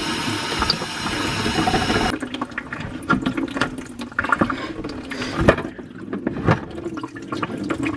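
Water running down through a sink's drain tailpiece into a bucket, a steady rush that cuts off abruptly about two seconds in. Then uneven dripping and trickling into the bucket as the water works slowly down the tailpiece, which is the slowest, most clogged part of the drain.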